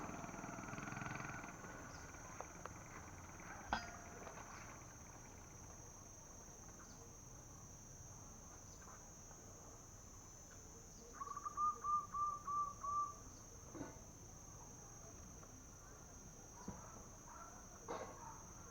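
Steady high-pitched insect drone, with a quick run of about six short chirping notes a little past the middle and a few faint ticks.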